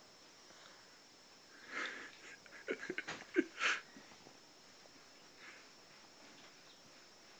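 A child's quiet breathy sounds and sniffs with bedding rustling, in a short cluster from about two to four seconds in, the loudest breath near the end of the cluster.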